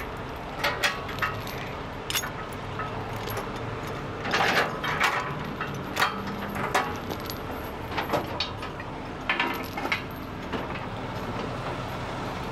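Steel recovery chain clinking and rattling as it is handled and hooked up for rigging, in irregular clinks and short rattling bursts, over a steady low rumble.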